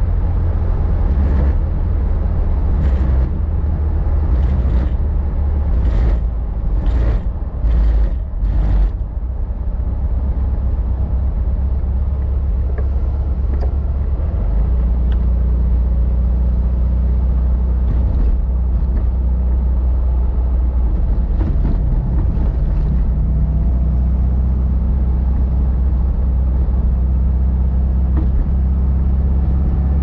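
The 36 hp air-cooled flat-four engine of a 1954 VW Beetle running steadily under way, a deep even rumble. Several short sharp noises come over it in roughly the first nine seconds.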